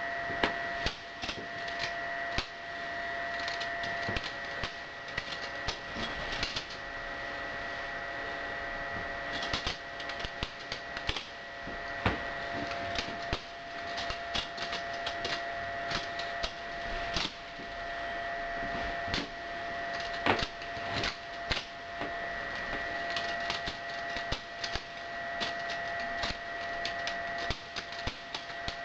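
Spyderco Szabofly balisong being flipped: a run of irregular sharp clicks and clacks as the handles swing around and strike each other and the blade's stop pins. A steady high hum sounds underneath.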